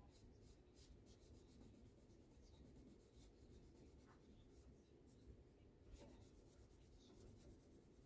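Near silence: room tone with faint scattered scratchy ticks.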